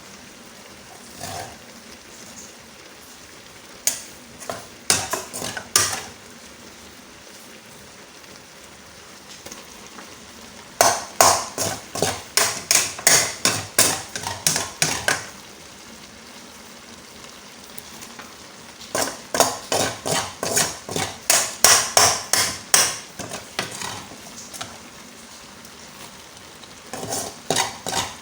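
A spoon stirring and scraping in a cooking pot as fried egusi is mixed into the meat stock, in three runs of quick strokes about three or four a second. A faint steady sizzle runs underneath.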